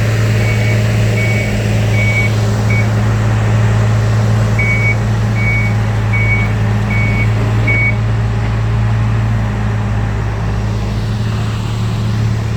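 Heavy diesel construction machinery running steadily, with a backup alarm beeping in two runs: one stops about three seconds in, and another sounds from about four and a half to eight seconds.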